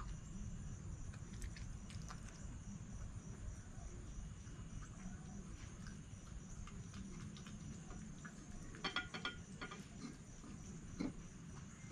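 Red fox eating from a bowl, crunching and chewing dry food in scattered sharp clicks, with a dense run of crunches about nine seconds in and another single loud one near eleven seconds, over a steady low background rumble.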